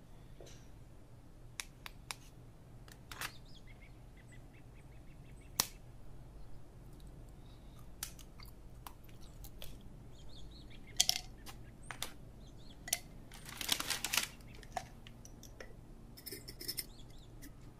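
Thin, crisp sesame tuiles clicking and tapping against each other as they are picked up and handled. A longer crackle comes in the last third, then a few quick clicks near the end.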